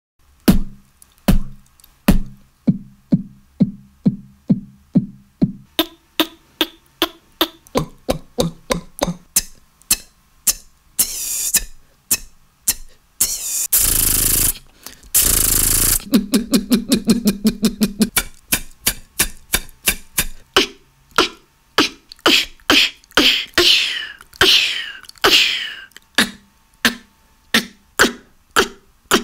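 Beatboxer making a fast run of mouth-made drum hits and sound effects. About halfway through come two long hissing sounds, then a low buzzing stretch, and near the end a few sweeping rising and falling glides.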